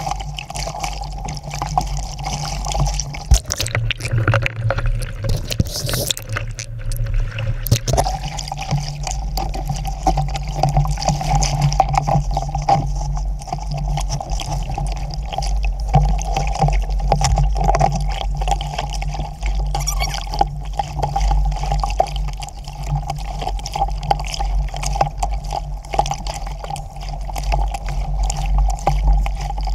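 Lake chop splashing and sloshing against the hull of a small Sabot sailing dinghy, with spray coming over the low deck. Steady wind buffets the microphone underneath.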